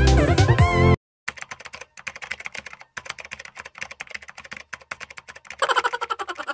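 A musical intro jingle ends about a second in. After a brief gap comes rapid computer-keyboard typing, a fast run of key clicks that grows louder near the end.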